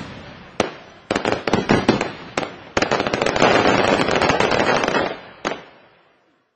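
Aerial fireworks bursting: a handful of separate sharp bangs, then a dense, rapid run of reports for about two seconds, and one last bang. The sound then fades out to silence shortly before the end.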